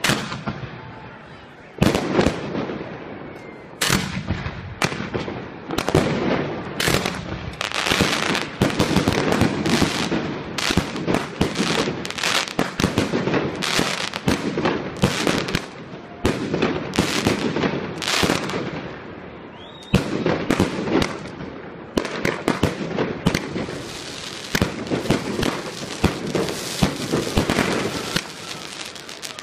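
Professional aerial fireworks display going off: many sharp bangs of bursting shells, several a second at times, with dense crackling between them and brief lulls every few seconds.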